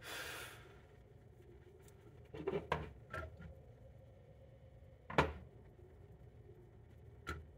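Small clicks and knocks of Portacount 8020A instrument parts being handled and fitted together by hand. It opens with a brief rustle, then a cluster of taps a couple of seconds in. The loudest single knock comes about five seconds in, and a last tap near the end.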